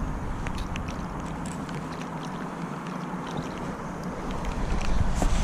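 Wind rumbling on the microphone over a steady outdoor hiss, with a few faint small ticks and light water sounds. The rumble grows stronger near the end.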